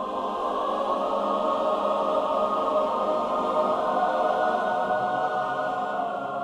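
Film score of wordless choir singing sustained chords over the music, swelling a little and fading near the end.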